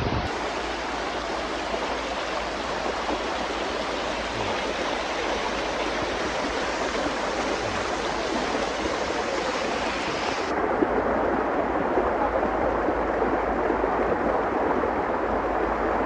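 Fast mountain stream rushing over rocks in white-water rapids, a steady, even rush of water that turns a little duller about ten seconds in.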